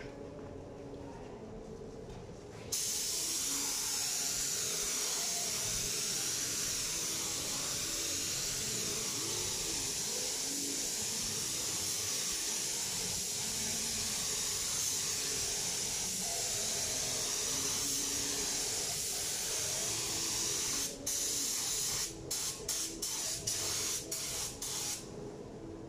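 Compressed-air spray gun spraying primer in a long, steady hiss that starts about three seconds in. Near the end the trigger is pulled in several short bursts.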